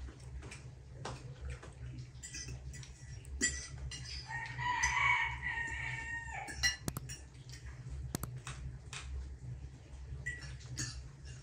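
A rooster crows once, about four seconds in, a call lasting some two seconds. Short clinks of cutlery on plates are heard throughout.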